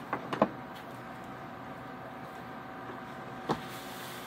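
A few sharp knocks of hands and dough on a granite countertop, in a quick cluster at the start and once more about three and a half seconds in, over a steady mechanical hum with a faint high tone.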